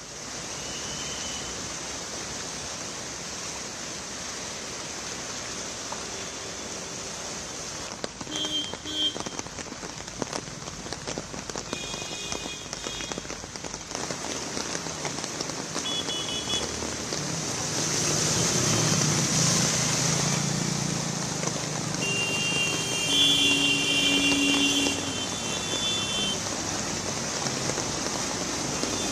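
Steady hiss of rain on a wet road with slow-moving traffic. Vehicle horns honk briefly several times, more toward the end, and a low engine rumble swells a little past the middle.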